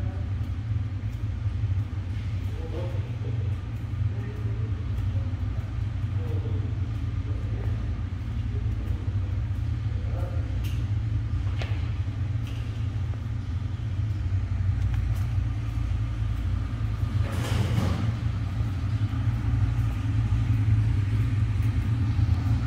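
A steady low rumble, with faint voices in the background and a few light knocks, and one short rushing burst near the end.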